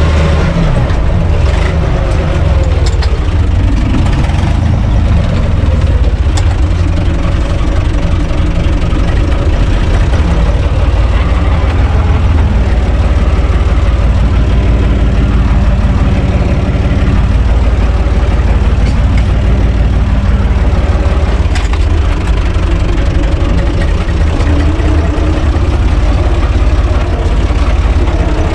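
Diesel engine of a UTB Universal U445 DT 4x4 tractor running loudly as the tractor is driven, heard from inside the cab. The engine speed changes briefly a few seconds in and is otherwise steady.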